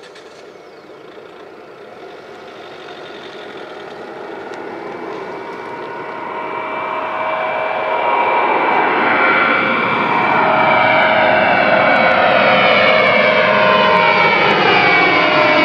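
An Airbus A320-232's two IAE V2500 turbofan engines at takeoff thrust as the jet lifts off and climbs toward overhead. The sound grows steadily louder over about eight seconds and then holds, a steady whine over the rush of jet noise with a sweeping, phasing quality as the aircraft nears.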